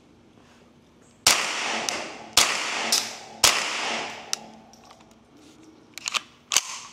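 Three unsuppressed shots from a Ruger 10/22 Takedown .22 LR rifle firing CCI subsonic ammunition, about a second apart, each trailing off in echo. Near the end come a few lighter clicks as the rifle's action is worked.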